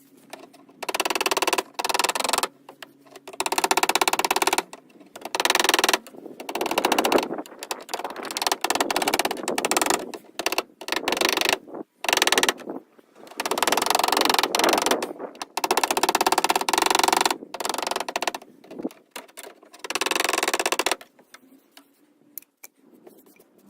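A hammer tapping a dent out of a Mercedes R-Class car fender from behind, trying to pop the dip back out. The blows come in quick runs of rapid, sharp taps with short pauses between runs, and thin out near the end.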